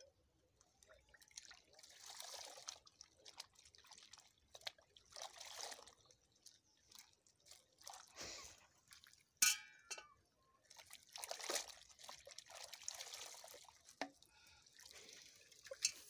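Water splashing, sloshing and dripping in a metal pot as a wet hen is worked by hand and its feathers plucked, in irregular bouts. A single sharp clink with a brief ring, the loudest sound, comes about nine seconds in.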